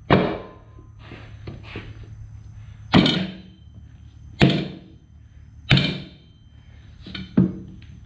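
Dull thunks of a new Michelin Scorcher motorcycle tire being shoved by hand down over the wheel rim, the rubber knocking against the rim and the plywood under it. There are five loud knocks at uneven gaps, with lighter ones between.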